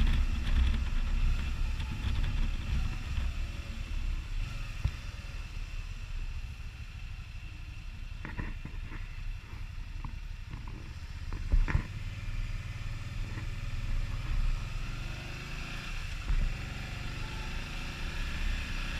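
Can-Am Spyder ST Limited three-wheeled motorcycle underway, a steady low engine and road rumble that eases off through the middle and builds again near the end, with a couple of sharp knocks around the middle.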